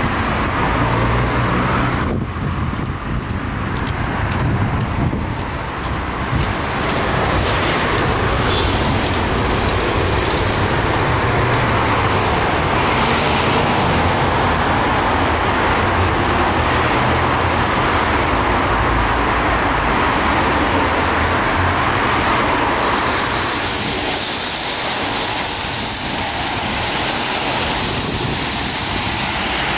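Steady roadside traffic noise from cars passing, turning hissier about three-quarters of the way in.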